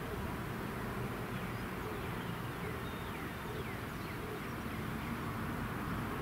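Pair of EMD SD40E diesel locomotives running as they approach from a distance, a steady low engine rumble. A few short bird chirps come through in the middle.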